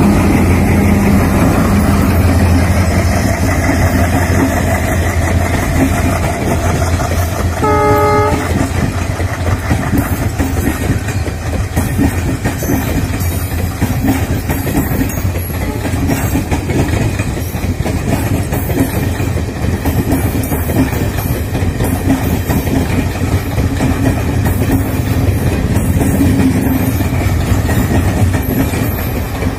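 Passenger express of ICF coaches rolling past at speed, wheels clattering over the rail joints. The low running sound of the WDM3A diesel locomotive's engine fades during the first few seconds as it moves away. A short horn blast sounds about eight seconds in.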